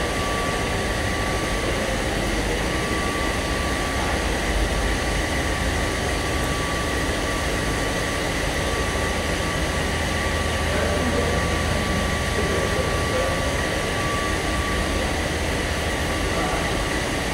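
Steady machine hum of a running Teflon (PFA/ETFE/FEP) cable extrusion line and its ancillary equipment, with a low rumble and a steady high whine.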